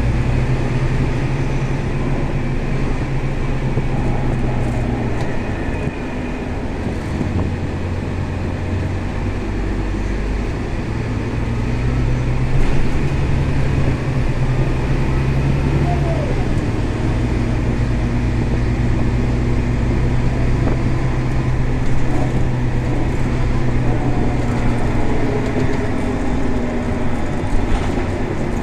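Scania K320 bus's diesel engine and drivetrain heard from inside the passenger cabin, running steadily under way, the engine note stepping up and down several times as the bus changes speed.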